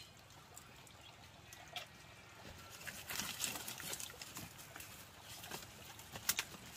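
Sticks of firewood being pushed and shifted in the fire under a clay wood-burning stove: light wooden knocks and crackling from the burning fire, starting about three seconds in, with a few sharper clicks near the end.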